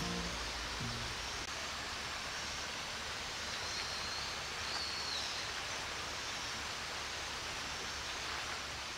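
Steady rush of a river flowing, with a few faint high chirps around the middle.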